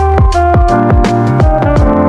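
Background electronic music: a fast drum beat over a deep bass and held synth notes.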